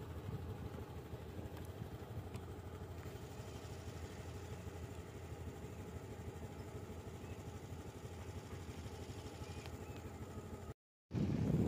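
Engine of the vehicle carrying the camera, running steadily at low speed with a rapid low pulsing. Near the end the sound cuts out completely for a moment, then comes back with louder wind buffeting the microphone.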